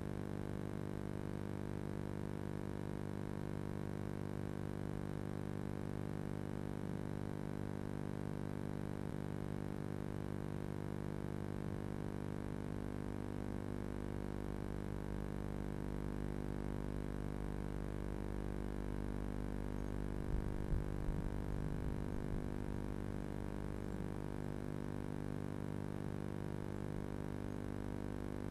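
Steady electrical mains hum with many even overtones, carried on the nest box camera's audio feed. A short cluster of soft low thumps comes about two-thirds of the way through.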